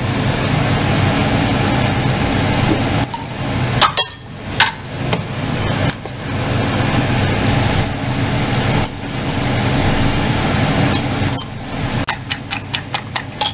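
A salt and pepper grinder grinding in long rough stretches, with a couple of sharp clinks about four seconds in. Near the end, a fork beats eggs in a bowl with quick clicks, about five a second.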